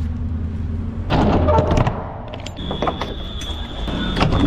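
Lorry engine idling with a steady low hum, under metallic clunks and knocks. A steady high-pitched tone starts about two and a half seconds in.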